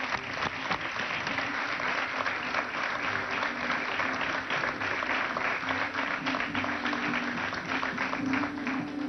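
Crowd applauding steadily. A folk string band of violins and guitars comes in under it partway through, playing the golpe tocuyano, Lara's traditional music.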